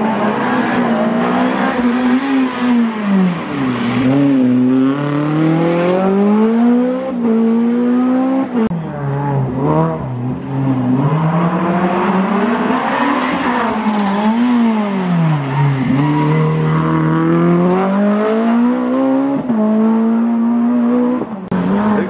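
Rally car engine revving hard, its pitch climbing and dropping again several times over.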